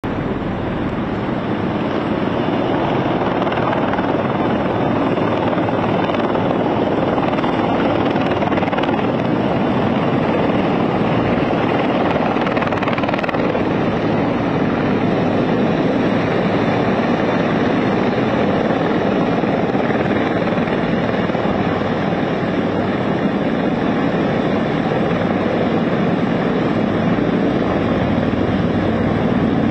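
Helicopter landing: the rotor and engine noise is loud and steady as it hovers and settles onto a rooftop helipad.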